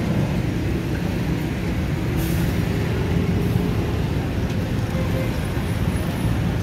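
Street traffic: a steady low engine rumble of passing vehicles, with a short hiss about two seconds in.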